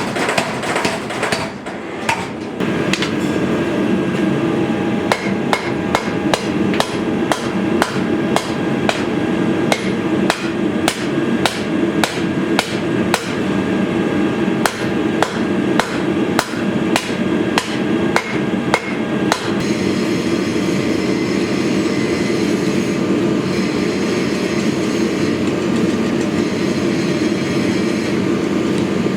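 Hammer blows on hot leaf-spring steel at the anvil, about two strikes a second, over a steady roar. The hammering stops about two-thirds of the way through while the roar carries on.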